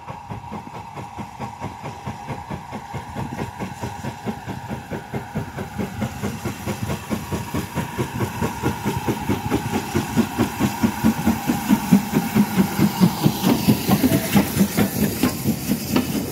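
Steam locomotive 5526, a GWR small prairie tank engine, pulling away with a train, its exhaust chuffing in a steady rhythm of several beats a second that grows louder as it approaches. Near the end the coaches roll past close by.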